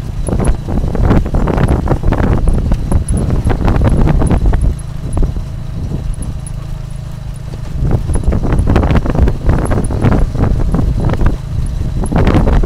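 Motorbike tuk-tuk carriage rattling and knocking over a rough dirt road, with its motorbike engine running underneath. The clatter eases about five seconds in to a steadier low engine hum for a few seconds, then picks up again.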